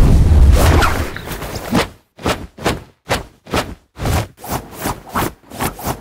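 Boxing sound effects: a heavy punch impact with a deep low thud, then a rapid run of about a dozen short punch hits and swishes, roughly three a second.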